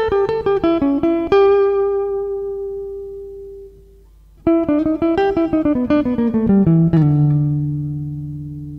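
Improvised jazz guitar: a fast descending run of single plucked notes settles on a held note that rings and fades, then after a short pause about four seconds in, a second falling run ends on a low note left ringing.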